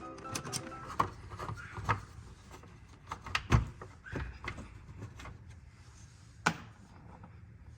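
Scattered clicks and knocks of a screwdriver bit and hands working on plastic hatch trim while its screws are taken out, the loudest knock about three and a half seconds in and a last sharp click near the end.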